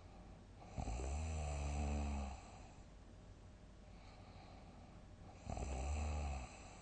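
A person snoring loudly in deep sleep. There are two long, low-pitched snores about four seconds apart, the first lasting about a second and a half and the second about one second.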